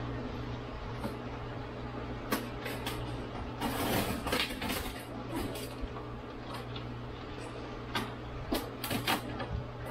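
Hands scraping, rustling and clicking at the taped styrofoam lid of an insulated fish-shipping box, with a longer scraping rustle about four seconds in and a cluster of sharp clicks near the end, over a steady low hum.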